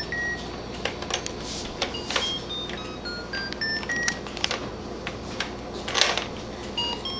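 Short electronic beeps climbing in quick step-by-step runs, like a baby toy's tune, over repeated clicks and clatter of plastic toy parts, with one louder clack about six seconds in.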